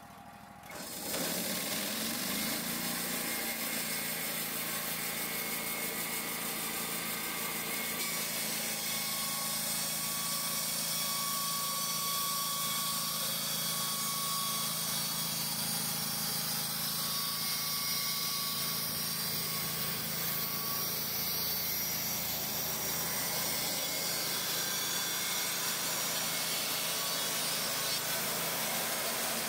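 Wood-Mizer LT35 band sawmill running: its engine rises in pitch over the first two seconds, then holds a steady speed with a constant hiss.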